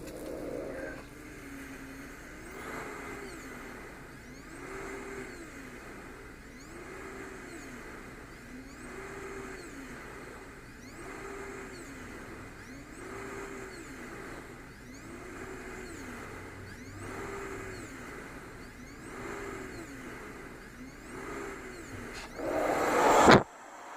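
Transcend travel CPAP blower running at 10 cmH2O with pressure relief (flex 3), its pitch rising and falling about every two seconds as the machine follows breathing cycles. Near the end a loud rush of air swells for about a second and cuts off abruptly.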